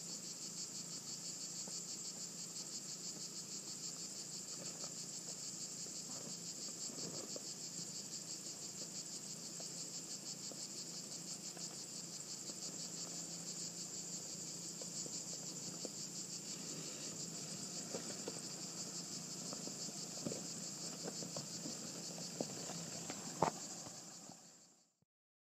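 A steady, high, fast-pulsing chorus of cicadas in sunny pine scrub. Under it runs a faint low engine hum, and there are a few sharp knocks and crunches near the end before the sound fades out.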